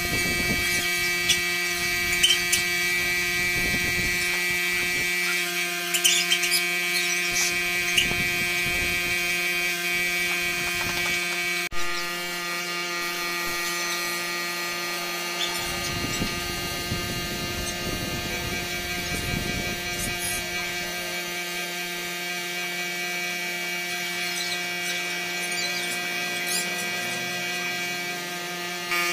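Compressed-air spray gun spraying wood finish, its hiss over a steady buzzing motor hum, with a few light clicks early on.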